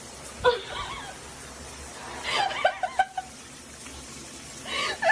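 A person laughing in three short bursts, about half a second in, a second or two later, and near the end, over a steady background hiss.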